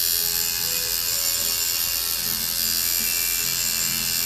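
Tattoo machine buzzing steadily as the needle works into the skin, with music playing faintly underneath.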